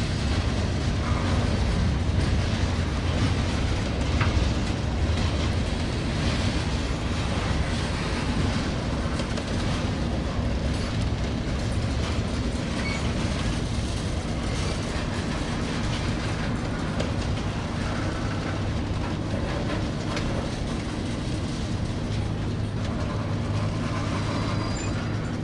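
Freight train cars rolling past: covered hoppers, tank cars and boxcars, their steel wheels running on the rails in a steady low rumble.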